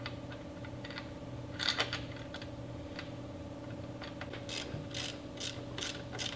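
Socket ratchet driving in a motorcycle's foot-peg mount bolt: from about two-thirds of the way through, its pawl clicks in regular strokes, about three a second. Before that come light metallic clicks and taps as the bolt is threaded in by hand, with a brief louder clatter near two seconds in.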